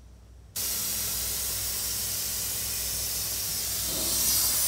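Hypertherm Powermax85 plasma cutter cutting steel: a steady, loud hiss that starts suddenly about half a second in and grows louder near the end.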